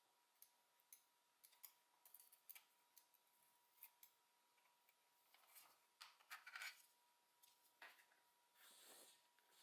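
Faint clicks and scrapes from small plastic parts of a Logitech G304 wireless mouse being handled and pried during disassembly: scattered sharp clicks, then a few longer scraping strokes in the second half. A faint steady tone sits under it.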